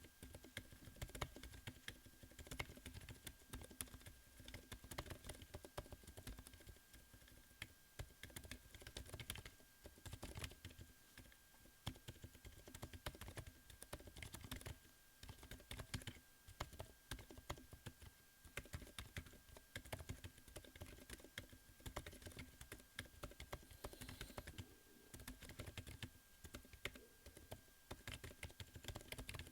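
Faint typing on a Corne v4 Chocolate split keyboard with Lofree x Kailh Hades Silent Linear switches: quick runs of soft keystrokes broken by short pauses.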